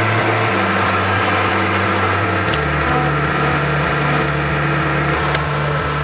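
Milling machine running as its bit cuts a hole into a steel pivot shaft for a grease zerk, over background music with sustained low notes.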